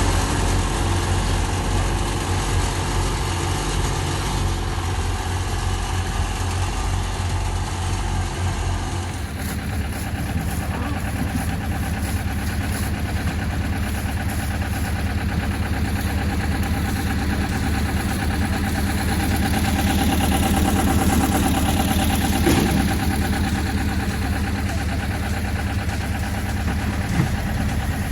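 Engines of road-paving machinery running steadily, with a low, even hum. The sound changes abruptly about nine seconds in.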